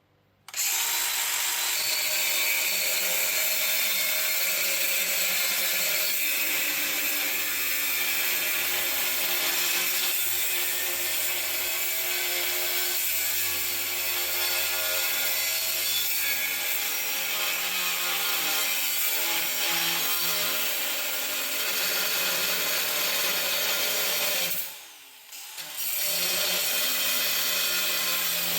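Angle grinder running against steel with a steady grinding noise; it stops for about a second near the end, then starts again.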